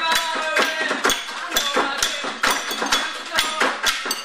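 Percussion ensemble of drums and struck objects beating a steady pulse of sharp strikes about twice a second, with voices singing over it.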